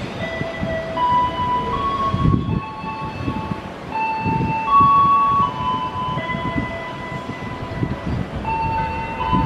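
Commuter train cars rolling through a junction's points, with irregular low knocks and rumble from the wheels. A slow melody of held notes plays over it.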